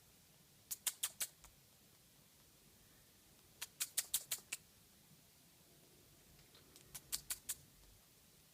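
Budgerigar coughing: three fits of short, sharp, clicky coughs in quick runs of about five to seven, about a second in, around four seconds in and about seven seconds in.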